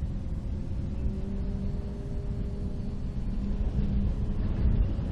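Wind rumbling on the microphone over the faint steady drone of an electric RC model plane's brushless motor and propeller in flight. The drone's pitch rises slightly about a second in.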